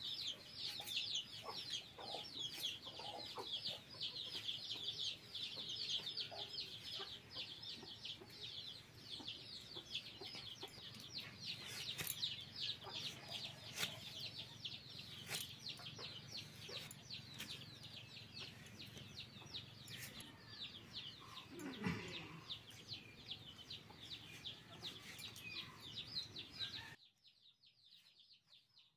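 Chickens calling continually in a dense run of quick high chirps, with a few sharp clicks as vegetables are sliced on a boti's upright blade. The chirping drops away suddenly near the end.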